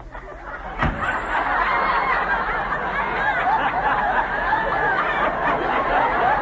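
Studio audience laughing, swelling about a second in just after a single sharp thump, then carrying on steadily.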